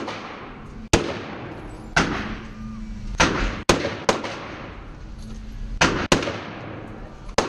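Daniel Defense M4A1 AR-15-style rifle fired semi-automatically, about eight single shots at an uneven pace with short pairs among them. Each shot rings on briefly in the echo of an indoor range.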